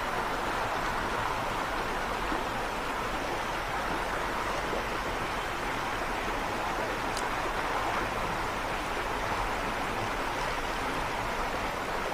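Fast floodwater rushing and churning in a steady, unbroken wash of noise.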